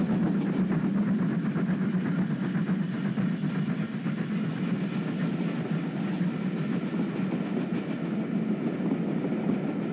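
A double-headed steam train, two steam locomotives hauling a passenger train, passing by while working hard on a steep climb. It makes a steady, dense running noise with no break.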